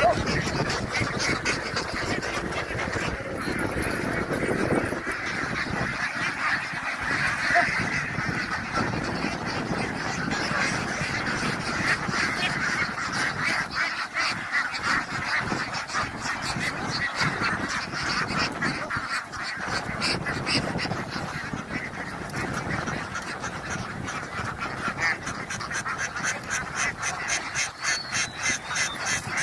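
A large flock of ducks quacking and calling all at once, a continuous dense din of overlapping calls.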